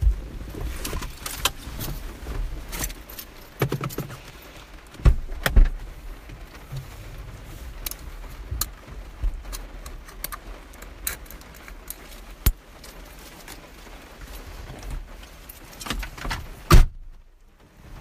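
Keys jangling amid scattered knocks and clicks of handling inside a car, with a sharp click near the end.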